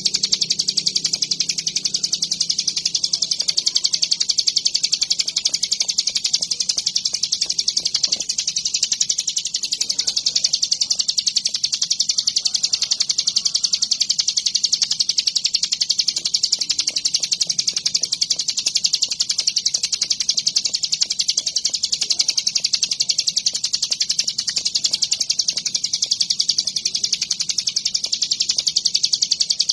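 Ciblek gunung, a mountain prinia, singing without a break: a fast, high-pitched chattering trill of rapidly repeated notes.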